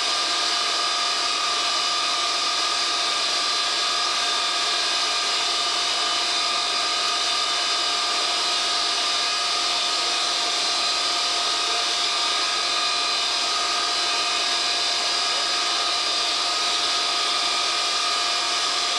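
Pratt & Whitney J57 turbojet engines of a KC-135A Stratotanker running steadily on a ground engine run, heard from inside the cockpit: a steady high whine with several constant tones over a rushing hiss.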